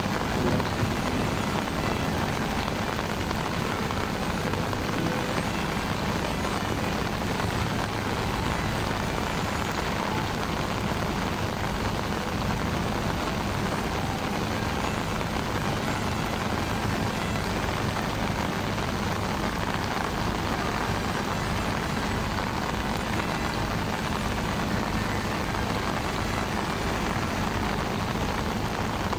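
Steady rushing noise of heavy rain and strong wind in a storm.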